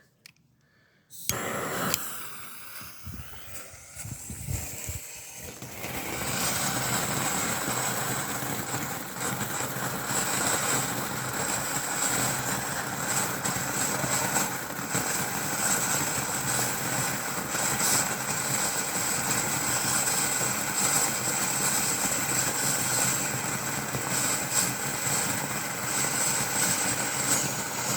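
Standard Fireworks garden fountain firework spraying with a steady, loud hiss. It starts about six seconds in, after a sudden sound about a second in and a few quieter seconds, and dies down near the end.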